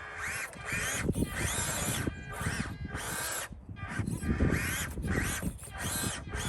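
RC crawler's electric motor and gear train whining in several short throttle bursts, the pitch rising and falling with each one, over the clatter of the truck crawling.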